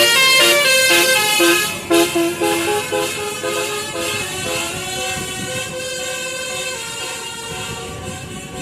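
Bus telolet horn, a multi-note musical air horn, playing a quick run of stepping notes, loud for about the first two seconds, then dying away to fainter horn tones over vehicle noise.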